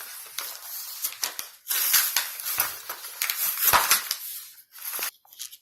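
Plastic toy packaging being pulled open by hand: irregular crinkling and crackling with sharp clicks, loudest in the middle and dying away near the end.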